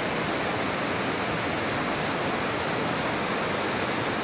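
Steady rushing of falling water, an even noise that holds without change.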